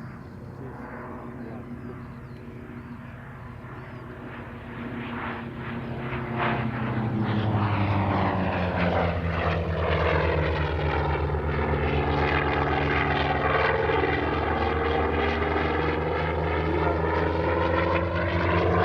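Vought F4U Corsair's Pratt & Whitney R-2800 radial engine and propeller running. It grows louder from about five seconds in and then holds strong, with a sweeping, phasing tone as the aircraft moves past.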